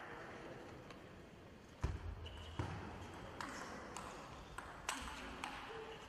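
Table tennis ball ticking: a handful of sharp, irregular taps of the ball on the table and paddle, the loudest just under two seconds in with a dull thump under it, over faint sports-hall murmur.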